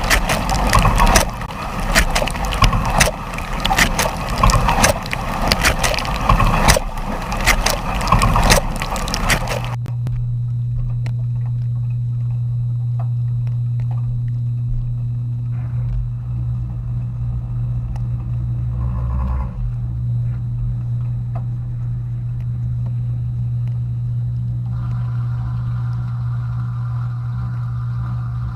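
Dishwasher running: water spraying and splashing with rapid clattering for about ten seconds, then the spraying stops abruptly, leaving a steady low motor hum. A second, higher-pitched hum joins near the end.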